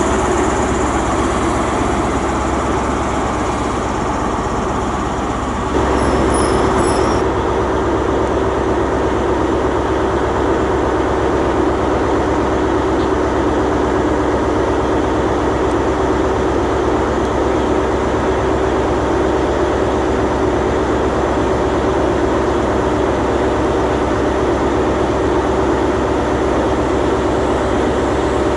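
For the first six seconds, a Class 43 HST's diesel power car running as the train moves along the platform. Then it cuts suddenly to a Hitachi IET (Class 800/802) train approaching at low speed: a steady hum with a few held tones.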